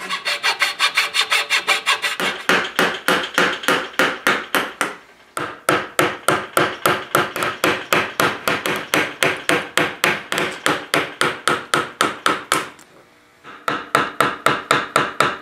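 Hand tools shaving a glued-in maple patch flush with a chair rail, in quick, even scraping strokes about five a second. A chisel pares off curled shavings. The strokes pause briefly twice, about five seconds in and near the end.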